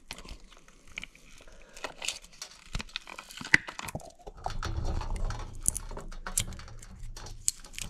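A silicone sphere mold being flexed and pulled off a cured epoxy resin ball by hand, giving scattered clicks and crackles. A low rumble joins about halfway through.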